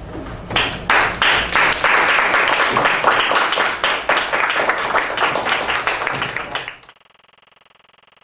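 A small group clapping, starting about half a second in and cut off suddenly near the end, leaving only a faint steady hum.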